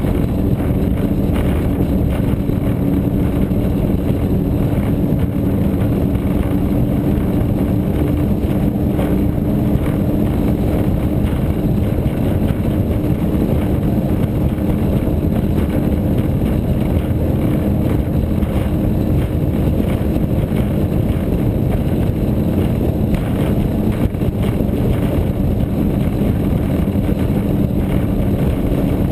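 36 ft Cigarette Gladiator powerboat running steadily under power: a constant engine drone with two steady low tones, mixed with wind on the bow-mounted microphone.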